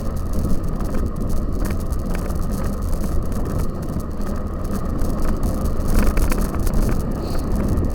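Cyclocross bicycle being ridden over rough ground, heard from on the bike: a steady rumble of wind and tyres, with scattered rattling clicks from the bike.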